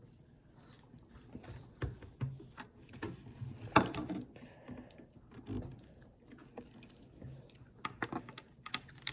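Small toy pieces being handled and fitted together: scattered light clicks and taps at an irregular pace.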